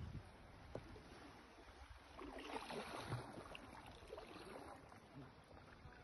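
Faint water splashing and lapping around a kayak: irregular small splashes from paddling, a little stronger about two to four seconds in.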